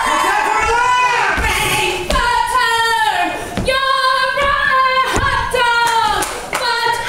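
Live musical-theatre singing: a high voice holding and bending notes in a rock show tune, with a few sharp hits about every second and a half.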